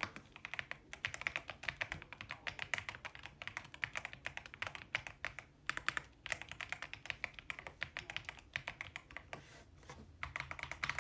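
Fast typing on a hot-swappable wireless mechanical keyboard in its stock form, a dense run of soft, 'creamy' keystroke clacks with a couple of brief pauses.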